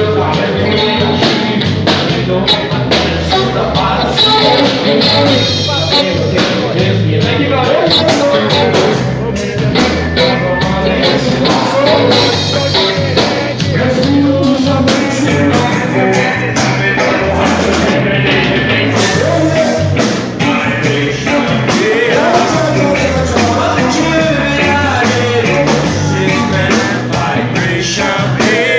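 Live rock band playing loud, heavy music with a fast, steady beat and a singing voice.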